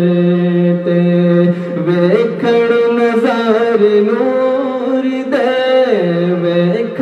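A male voice sings a Punjabi naat a cappella, holding long notes that slide to new pitches. More than one vocal line sounds at the same time.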